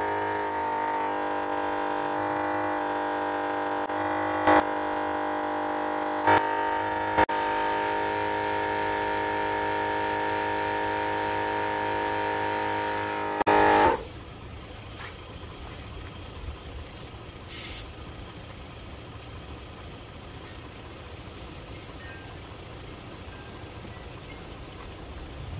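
Maxi Trac 300 LPM air compressor running with a steady buzzing whine, a few sharp clicks over it. About halfway through it cuts off after a brief louder burst, leaving only a faint even noise.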